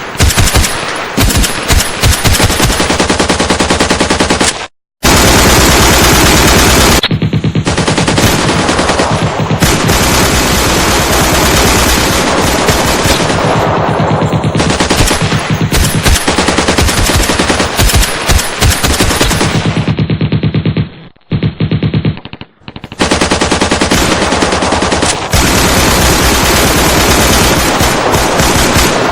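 Sustained, loud automatic machine-gun fire in long rapid bursts, with a brief break about five seconds in and two short pauses about three quarters of the way through.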